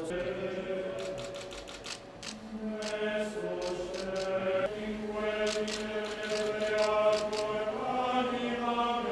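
Clergy singing a slow liturgical chant in long held notes that step from pitch to pitch. Runs of rapid sharp clicks sound over it about a second in and again past the middle.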